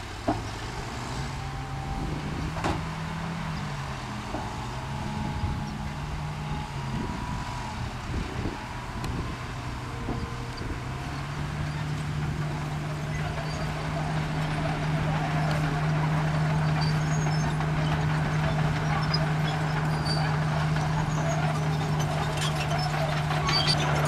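Dump truck's diesel engine running at raised revs to drive the tipper hoist as the body lifts and the load of dirt slides out. The engine note wavers up and down for the first ten seconds, then holds steady and grows louder, with a sharp knock just after the start.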